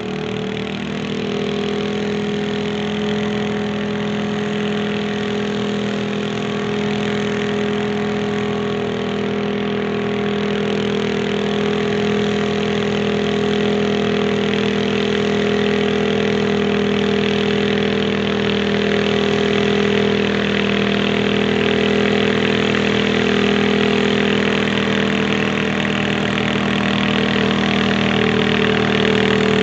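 Garden tractor engine running steadily under load at an even pitch as it pulls a weight-transfer sled down the track, slowly growing louder as it comes closer.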